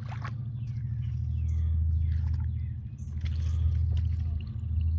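Birds calling with short falling chirps, several times, over a steady low rumble.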